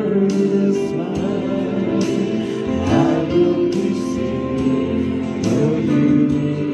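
Live worship song: singing into a microphone over strummed acoustic guitar, amplified through loudspeakers.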